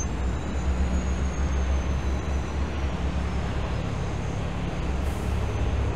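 City street traffic noise: a steady low rumble of vehicle engines under a continuous hiss of road noise.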